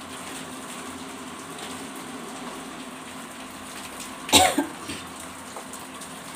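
Thick curry gravy simmering in a kadai while a spatula stirs it, a steady low sound with a faint hum. A person coughs once, sharply, about four seconds in.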